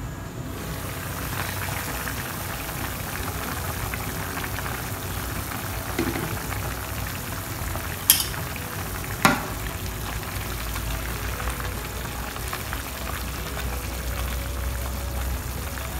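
Fish-head and vegetable broth bubbling and hissing in a nonstick pan, the sound opening up as the glass lid is lifted about half a second in. Two sharp clicks about a second apart come around the middle, and a spatula stirs through the broth near the end.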